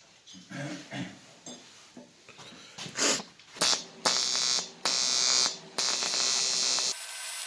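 Argon TIG welding arc on a cracked aluminium air-conditioning pipe. After a few light clicks of handling, the arc catches in short starts about three seconds in, then buzzes steadily with two brief breaks. It cuts out near the end, leaving a steady hiss that fits the argon shielding gas flowing after the arc stops.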